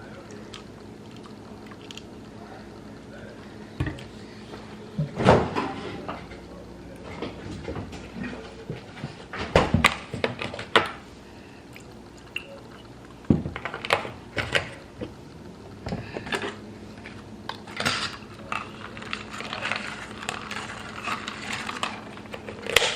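Kitchen handling sounds while iced coffee is made: scattered clinks and knocks of a cup, dishes and utensils, with some pouring of liquid, over a faint steady hum.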